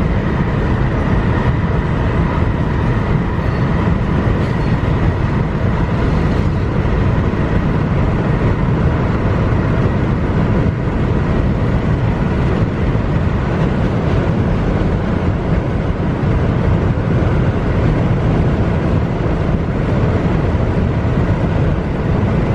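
Loud, steady rushing road and wind noise of a car driving at highway speed.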